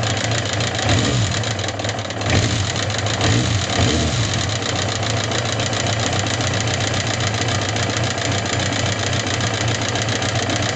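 Suzuki GSX750S Katana inline-four engine idling with a rapid rattling, clacking tick, blipped a few times in the first four seconds. The uploader describes the rattle as katakata/kachikachi. It has persisted after new rocker arms, camshafts and cam chain parts and repeated tappet clearance adjustment, and its cause is still unknown.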